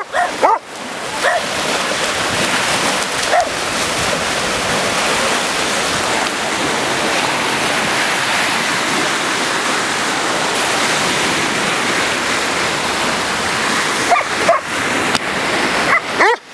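A husky-type dog barking: a few barks in the first second or so, then a quick run of barks near the end. Between them a steady rush of sea surf breaking on the shore fills the sound.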